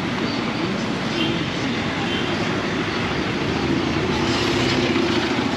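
Steady rumble of a vehicle in motion, with no sudden events.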